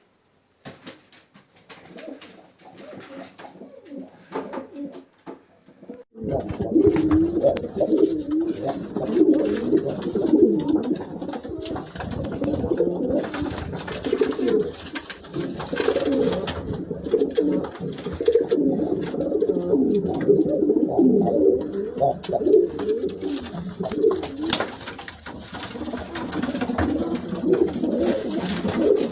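A flock of domestic pigeons cooing together, many birds at once in a dense, continuous warbling. The cooing starts suddenly about six seconds in; before that there are only faint scattered clicks.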